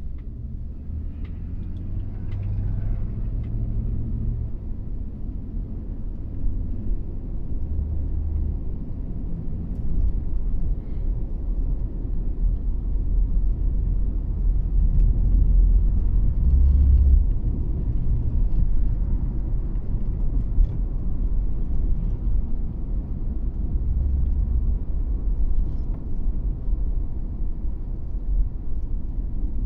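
Loud, uneven low rumble with a few faint ticks, like wind buffeting or vehicle road noise.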